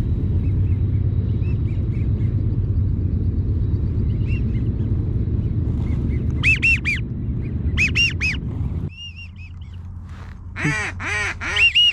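Duck calling: two short whistled calls about six and a half and eight seconds in, then a loud, rapid run of quacks near the end. Under the first part is a steady low rumble that cuts off suddenly about nine seconds in.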